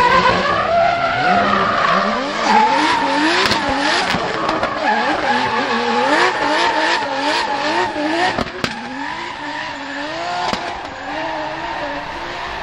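BMW M3 drift car's engine revving up and down in quick repeated cycles as it spins donuts, over the hiss and squeal of sliding rear tyres, with a few sharp cracks.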